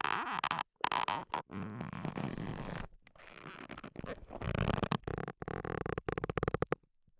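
Leather creaking as it is flexed and moved, a series of separate creaks made of rapid close-packed ticks, with short breaks between takes.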